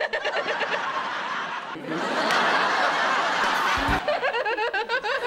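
A woman's quick staccato snickering laugh, then a burst of sitcom studio-audience laughter about two seconds in. After a sudden cut about four seconds in, another run of her rapid snickering laugh follows.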